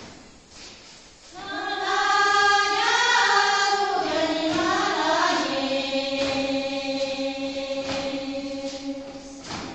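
A group of women singing a Sherpa Shyabru dance song together, starting about a second in; the sung line steps down in pitch and ends on a long held note. A few foot stamps from the dance are also heard.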